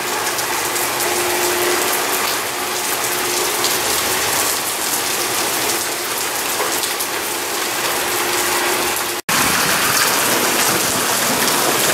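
Heavy rain pouring onto a paved parking lot and sidewalk: a dense, steady hiss of downpour. The sound breaks off for an instant about nine seconds in, then resumes.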